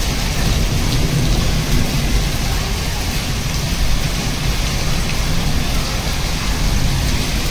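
Heavy rain mixed with hail pouring down onto concrete rooftops and walls: a loud, steady, dense hiss over a low rumble.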